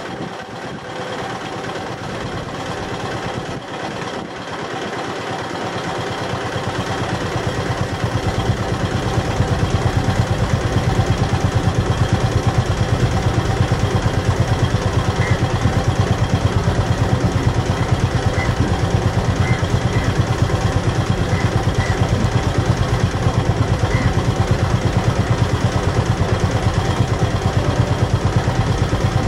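Boat diesel engine running with a fast, even beat. It grows louder over the first several seconds, then holds steady.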